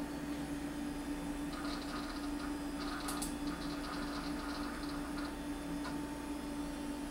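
A running MacIvory Lisp machine gives a steady hum. Faint rapid ticking runs from about a second and a half in to around five seconds, with a sharper click about three seconds in.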